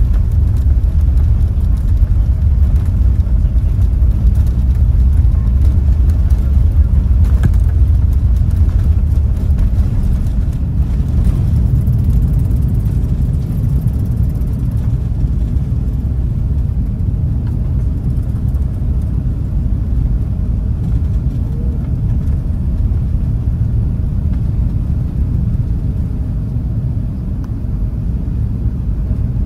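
Airbus A380 takeoff heard from inside the cabin: the engines at takeoff power and the runway roll make a loud, steady low rumble. The rumble grows somewhat quieter over the second half as the airliner climbs away.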